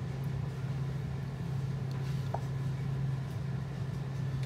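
Steady low machine hum, with one faint brief higher tone a little past two seconds in.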